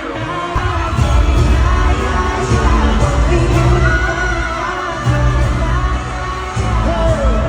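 Pop song with singing and a heavy bass beat, played loud over a concert sound system.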